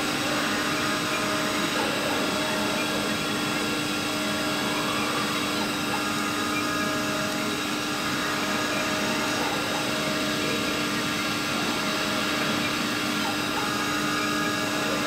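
Small 5-axis CNC router running, its spindle giving a steady whine made of several held tones over a constant machine hum.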